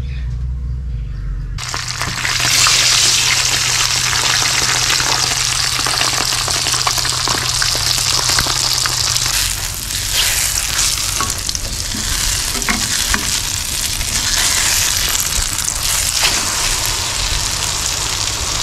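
A cha-om and egg omelette sizzling in hot oil in a frying pan, with a spatula scraping and clicking against the pan now and then. The sizzle begins suddenly about a second and a half in.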